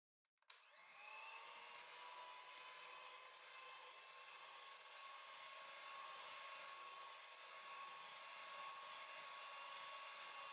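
Electric hand mixer starting up about half a second in, its motor whine rising quickly and then running steadily on a gentle setting as the wire beaters blend egg yolks into meringue.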